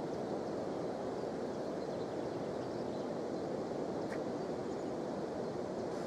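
Steady rush of river water flowing at a waterfall and over a pebble shallows.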